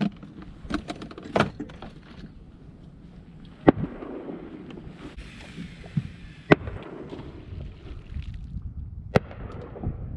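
About five sharp knocks and clicks of fishing gear being handled aboard a small boat, over a low steady background of wind and water.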